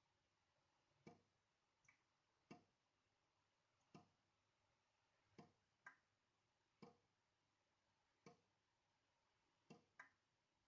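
Water dripping from a tap into a sink: quiet single drops falling about every second and a half, some followed by a smaller second plink.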